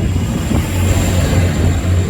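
Class 185 diesel multiple unit departing, its underfloor diesel engines running with a steady low drone over the rumble of the train moving along the track.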